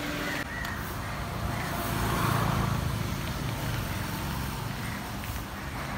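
Road traffic running steadily, with one vehicle swelling louder about two seconds in as it passes and then easing off.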